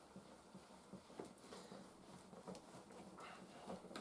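Faint rubbing and scattered soft ticks of a damp microfiber cloth wiping over a polycarbonate headlight lens, buffing off excess glass sealant.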